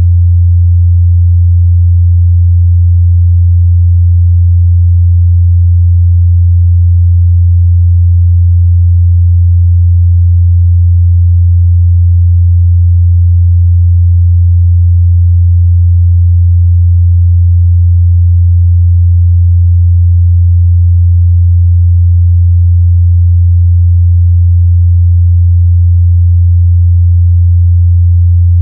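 A steady, loud 87 Hz pure sine test tone: a single low hum held at constant pitch and level, used to check how speakers and headphones reproduce mid-bass.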